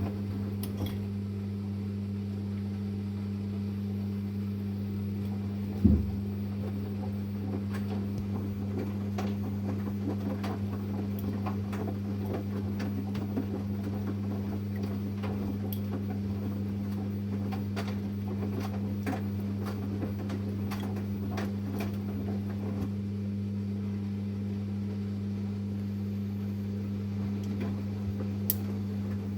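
Samsung Series 5 9 kg Eco Bubble washing machine running with a steady low hum, scattered light clicks and one thump about six seconds in.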